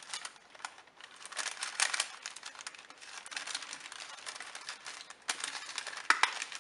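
Paper sandwich bags rustling and crinkling as they are handled, with a couple of sharper clicks from a hand stapler near the end as a ribbon is stapled to a cardboard strip.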